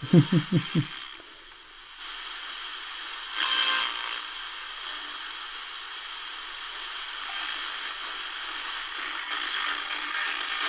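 A man laughs briefly at the start. Then a Tecsun DR-920C portable radio's speaker gives a steady FM static hiss as it is tuned slowly up the band between stations, with a brief louder swell about three and a half seconds in; reception is weak here.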